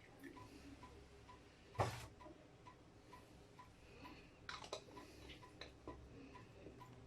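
Faint clock ticking about twice a second, with one sharp knock about two seconds in and a few light clicks a little after the middle.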